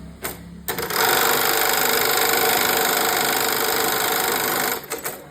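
Automatic cap eyelet (air-hole) machine running: a few sharp clicks, then a loud steady mechanical noise for about four seconds that cuts off with more clicks.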